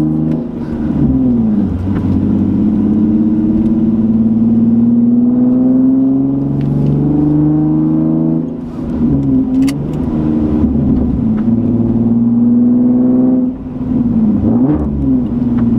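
Nissan 370Z Nismo's 3.7-litre V6, heard from inside the cabin, accelerating through the gears. The engine note climbs steadily, drops at a gear change about eight and a half seconds in and again near the end, then climbs once more. The car runs without catalytic converters.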